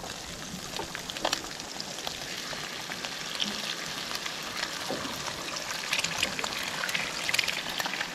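Bacon sizzling and spitting in a hot frying pan on a portable gas stove: a steady crackling hiss with many small pops. It grows louder from about six seconds in, as eggs are cracked into the hot fat.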